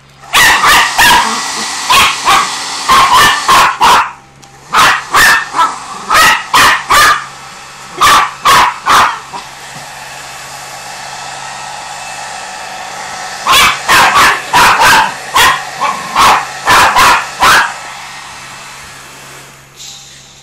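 A miniature pinscher puppy barking rapidly and frightened at a running electric blower, in three bouts of sharp barks with a pause of a few seconds in the middle. The blower's steady rushing noise starts just at the beginning and dies away near the end, and the barks are the loudest sound.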